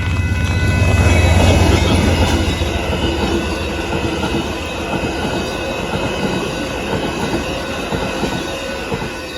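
Amtrak Texas Eagle passenger train passing close by: the diesel locomotive's low rumble is loudest a second or two in. The passenger cars' wheels then roll and clatter past on the rails, slowly fading.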